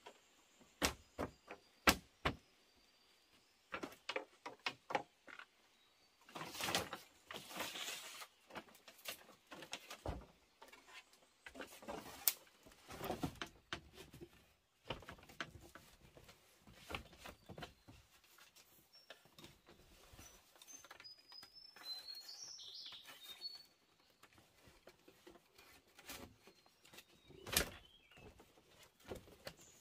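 Irregular knocks, clatter and scraping from hand work, with a bird chirping briefly about two-thirds of the way through.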